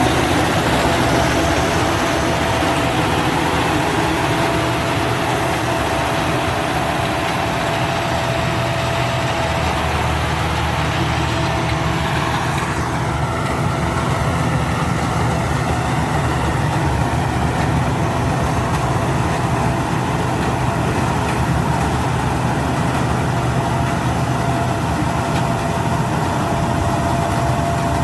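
Rice combine harvester running steadily, a continuous engine and machinery drone with a thin steady whine. About halfway through, the high hiss drops away and the low drone carries on.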